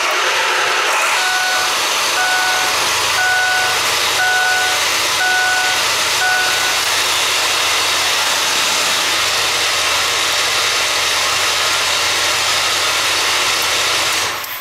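Truck engine, started by an Arduino remote-start circuit that fires the starter straight away because of a code fault, running loudly and steadily. A vehicle warning chime beeps six times, about once a second, during the first several seconds. The engine sound cuts off near the end.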